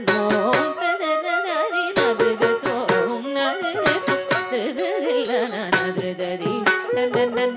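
Carnatic music for Bharatanatyam dance: a melody with wavering, gliding ornaments over frequent hand-drum strokes.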